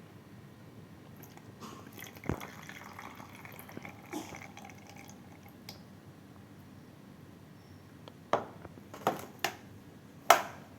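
Kitchen handling of the steamed apple and its liquid: wet dripping, with a few sharp clinks about two and four seconds in and a quick run of them near the end, the last the loudest.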